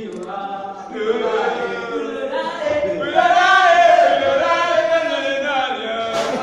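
A group of men chanting in unison, a sung chant with long held notes that swells louder about three seconds in.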